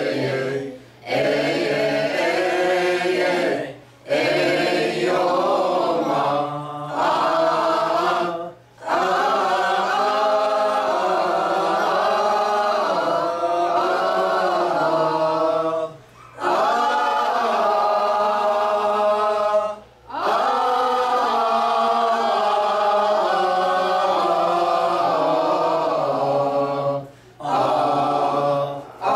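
Mixed group of men and women chanting a Coptic church hymn together, unaccompanied. They sing in long phrases of several seconds, with short pauses for breath between them.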